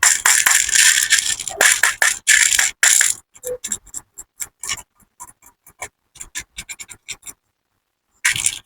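Small hard candies such as M&M's clattering: a dense rush of clicks for about three seconds, then scattered single clicks as pieces drop one by one, and a brief clatter near the end.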